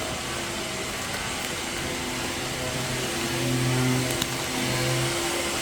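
A steady mechanical whir and hiss with a low hum, which grows louder about three seconds in and eases off a little before the end.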